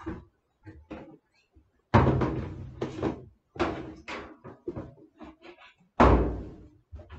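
A run of knocks and bangs from things being handled and set down. Two loud bangs come about four seconds apart, each dying away over most of a second, with lighter knocks between them.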